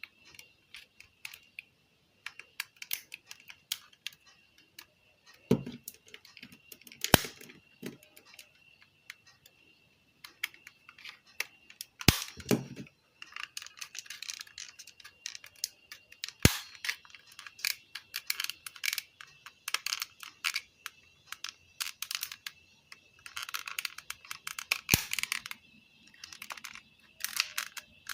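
Irregular small clicks, taps and a few louder knocks of plastic and metal parts being handled while a car stereo's front panel is taken apart, over a faint steady high whine.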